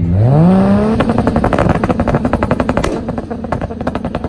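Single-turbo 2JZ straight-six engine revving up sharply over about a second, then held at steady revs against a launch limiter with rapid crackling and popping, building boost while staged for a drag launch.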